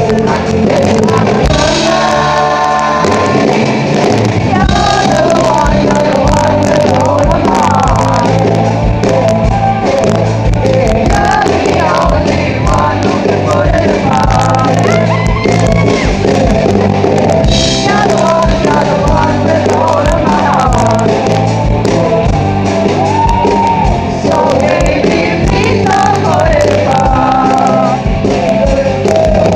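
A song performed live: a singer over loud, amplified band accompaniment.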